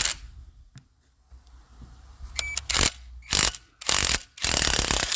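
Hand socket ratchet clicking in several short strokes, then a longer run of rapid clicks near the end, as a bolt on the engine is worked loose.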